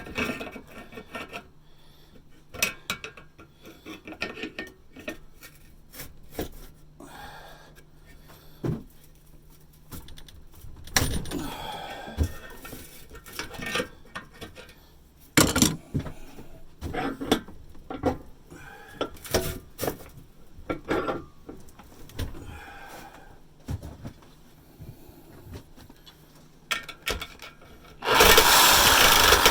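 Saw blade scraping and skipping on rusted steel exhaust pipe in irregular strokes, with metal clinks as the piece shifts; the blade won't bite and start its slot. About a second before the end, a loud, steady cutting noise starts.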